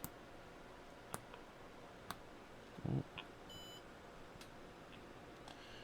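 Rotary encoder turned by hand, giving faint clicks about a second apart, then a short high beep from a multimeter's continuity tester about three and a half seconds in, the sign that the encoder's contacts are closing and giving a pulse.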